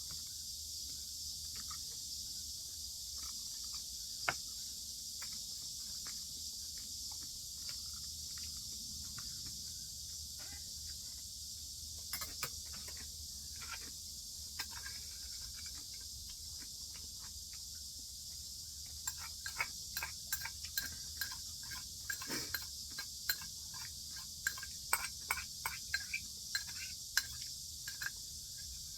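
Eating sounds: small scattered clicks of chewing and chopsticks or spoon on dishes, sparse at first and coming thick and fast in the last third, over a steady high-pitched hiss.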